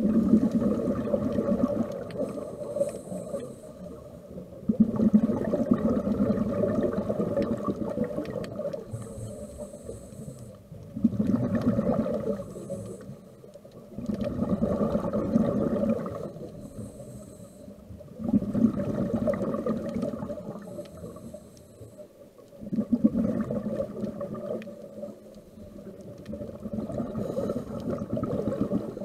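Scuba diver breathing through a regulator underwater: a short hiss on each inhale, then a long bubbling rumble as the exhaled air leaves, about seven breaths at an even pace.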